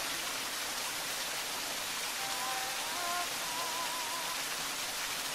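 Small artificial waterfall splashing steadily into a pool, a constant rush of falling water. A few faint high notes, one of them wavering, sound through it partway in.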